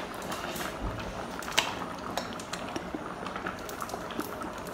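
A pot of yam porridge simmering on the stove: a steady bubbling hiss with scattered small clicks and pops.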